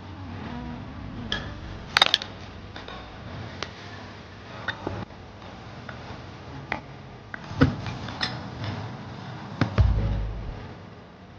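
Hand tools and metal parts clinking and knocking during suspension work: scattered sharp clicks and clanks, two louder knocks about two seconds and seven and a half seconds in, and a heavier thud about ten seconds in.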